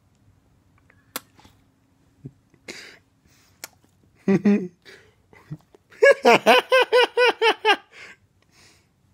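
A person laughing in a quick run of about ten high-pitched 'ha's lasting nearly two seconds, after a short loud vocal sound about four seconds in. Earlier come a few faint clicks and a breathy sniff as a dog noses and licks at their face.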